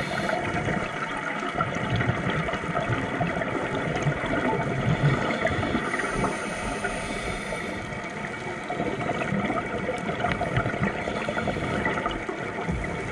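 Underwater ambience picked up through a dive camera's housing: a steady hum and rumble with scattered faint clicks. A rush of high hiss comes about six seconds in and lasts under two seconds.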